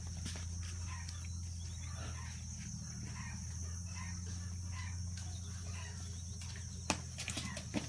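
Outdoor rural ambience: a steady high-pitched insect drone over a low steady hum, with scattered faint chirps. Two sharp clicks come near the end.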